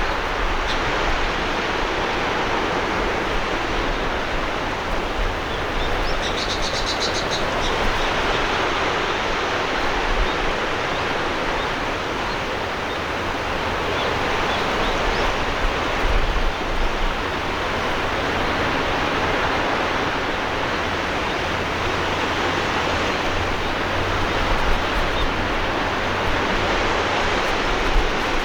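Sea waves washing onto the shore: a steady rush of surf that swells and eases gently. About six seconds in, a brief high, rapid chirping trill sounds over it.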